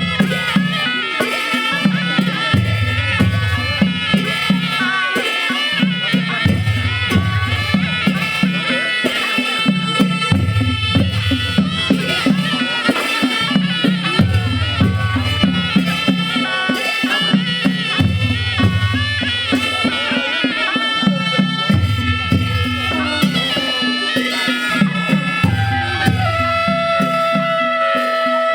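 Traditional-style folk music: a melody over a steady beat, with a bass figure repeating every two seconds or so and a held high note near the end.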